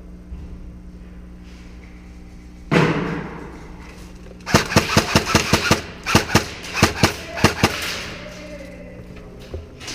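Airsoft guns firing in an indoor arena: a loud sharp crack with a lingering tail, then quick strings of sharp snapping shots, several a second, in two bursts.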